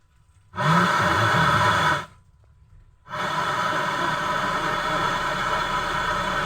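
Static hiss from a Bluetooth speaker's built-in FM radio, coming on about half a second in, cutting out for about a second, then returning steadily.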